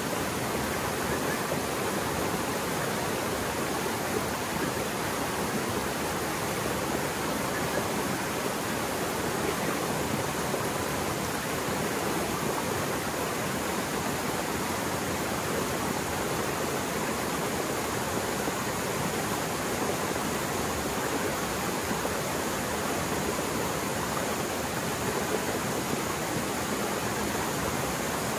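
Mountain stream in spate after heavy rain, its water rushing fast and steadily with no let-up.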